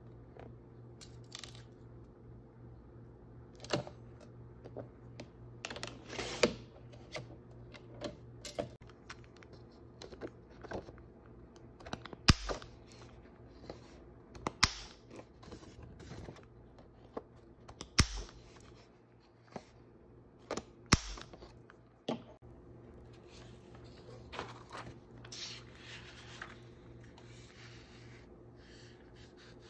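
Paper-crafting sounds: a sliding paper trimmer cutting a card print, with scrapes and clicks of the blade carriage and paper. Then a hand corner-rounder punch clacks sharply four times, once per corner, and near the end a plastic laminating pouch crinkles as the print is slid into it, all over a steady low hum.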